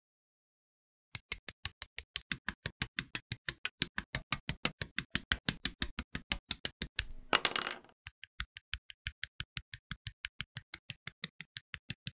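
Rapid, evenly spaced sharp plastic clicks, about six a second, from plastic model kit parts and side cutters being worked, starting about a second in. A brief scraping rustle breaks in around the middle.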